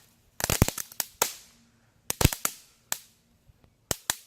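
Homemade musket charged with firework powder giving a ragged run of sharp pops and cracks, about a dozen in small clusters, instead of one shot: the charge fizzles without firing the pellet.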